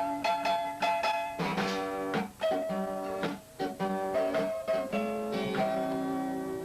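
Music: an instrumental guitar passage, with plucked notes following each other several times a second and no singing.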